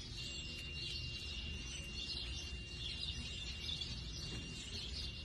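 Faint outdoor ambience with scattered bird chirps over a steady, thin high-pitched tone and a low background rumble.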